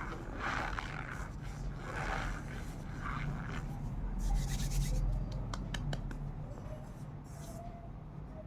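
Dry cornstarch being squeezed and pressed by hand, giving a run of short squeaky crunches, then a louder hissy crunch midway and a few sharp clicks. A low steady hum sits underneath.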